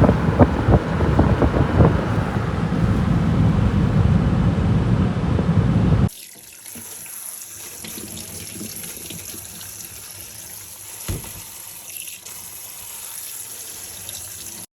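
Tap water running into a sink, with a few clinks near the start. About six seconds in it cuts off abruptly to a much quieter background hiss, with one low thump later on.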